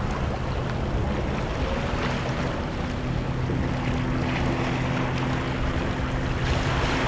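A motorboat engine drones steadily, over small waves washing against seaweed-covered rocks and wind on the microphone.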